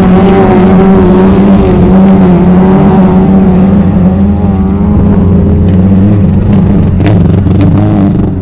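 Several small hatchback autograss race cars running flat out on a dirt track, their engines held at high revs with a wavering pitch. A few sharp clicks come about seven seconds in.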